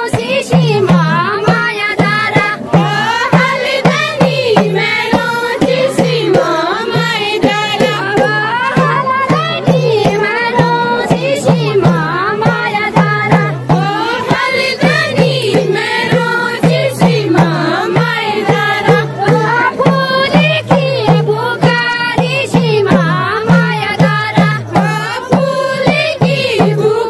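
A group of women singing a Kumaoni chanchari folk song in verses, over a steady drum beat.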